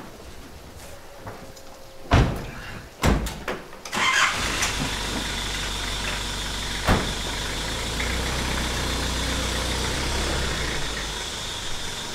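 Two pickup doors slam shut a second apart, then the pickup's engine starts and runs steadily, with one short knock midway.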